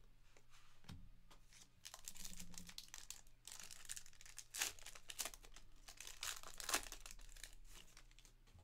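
Foil wrapper of a Panini Certified football card pack being torn open and crinkled: a run of sharp crackles and rips, loudest about four and a half and nearly seven seconds in.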